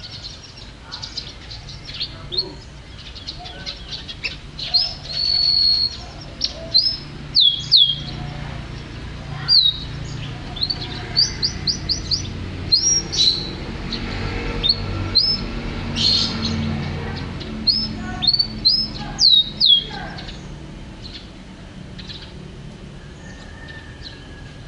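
Domestic canary singing: quick falling chirps and short whistles, with a held whistle about five seconds in, thinning out after about twenty seconds. A low steady hum runs beneath.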